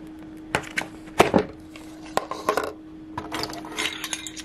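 Knocks and clicks of a hot chocolate tin and kitchen things handled on a wooden table, the loudest about a second in, then rustling and scraping with small clicks near the end. A faint steady hum underneath.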